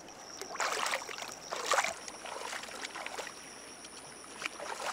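Water splashing and sloshing: two louder swishes in the first two seconds, then a few small splashes.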